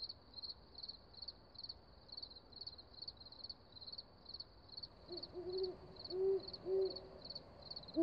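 Night ambience: crickets chirping steadily at about three chirps a second. From about five seconds in, an owl hoots three times, the loudest sound.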